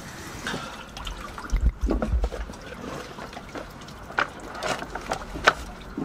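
Water trickling and dripping off a scuba diver climbing out of the sea up a boat's stern steps, with a few sharp knocks from his gear.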